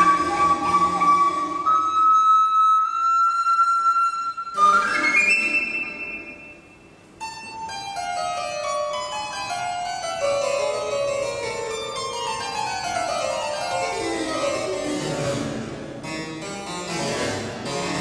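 Recorder holding long high notes that creep slightly upward, ending in a quick upward slide about four and a half seconds in. After a brief hush the harpsichord comes in with rapid plucked runs cascading downward again and again.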